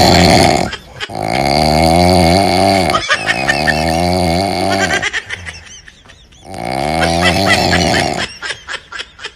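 A woman snoring loudly in long, rattling snores: the tail of one snore, then three more of about two seconds each, the pitch sinking at the end of each, with a pause of about a second and a half before the last. Near the end only a faint clicking flutter of breath remains.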